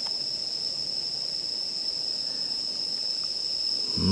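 Night insects, crickets or similar, calling in a steady chorus: one unbroken high-pitched trill.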